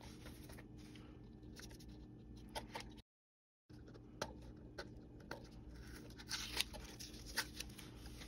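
Faint rustling and small ticks of blue painter's tape being peeled off a cardboard model house, over a low steady hum. The sound cuts out completely for a moment about three seconds in.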